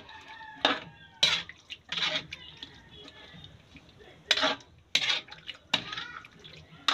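A metal spatula scrapes and clinks against a steel wok while a tomato-sauce stew is stirred. There are six or seven short, sharp strokes, with a pause of about two seconds in the middle.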